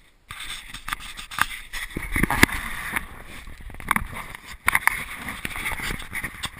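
Handling noise from a small fisheye camera being gripped and moved by hand: fingers rubbing over the microphone, with many scattered knocks and clicks.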